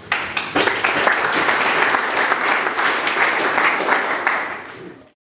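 Audience applauding, beginning suddenly and fading out near the end.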